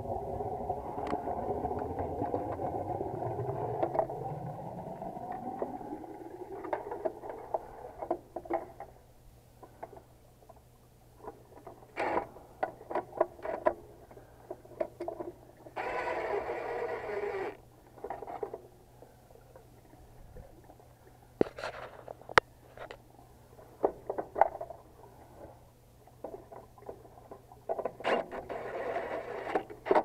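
Clicks, taps and rattles of hands and tools working among wires and terminals inside a heat pump's control panel. A cordless driver runs in a burst of about a second and a half halfway through, and again near the end, driving the contactor's mounting screws. At the start a hum rising in pitch fades out over the first several seconds.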